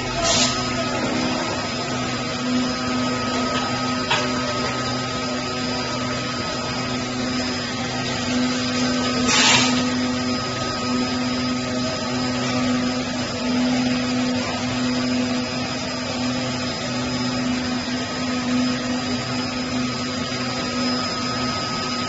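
Ultrasonic webbing cutting and punching machine running with a steady hum and high-pitched whine, with a few sharp clicks, the loudest about nine seconds in.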